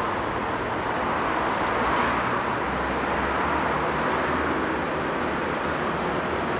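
Tram running along its track, heard from aboard: a steady rumble of wheels on rails and running noise.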